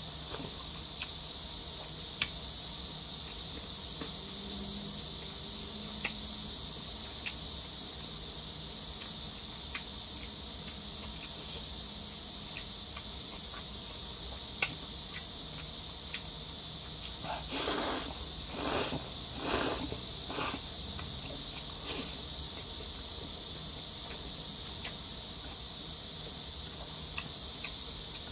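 A person eating jajangmyeon noodles: chopsticks tick now and then against the porcelain plate, and three loud slurps of noodles come about two-thirds of the way through, over a steady high hiss.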